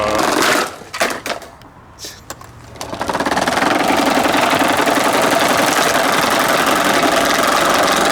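A battered SMC table fan running, a fast, steady mechanical rattle that starts about three seconds in, after a few sharp knocks.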